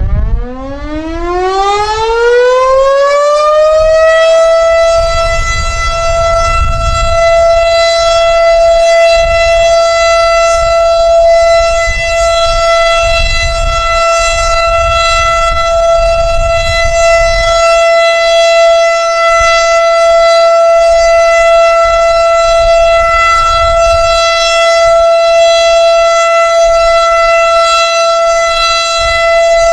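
Federal Super Siren outdoor warning siren winding up over the first few seconds and then holding a steady tone as an alert signal. Low wind rumble on the microphone underneath.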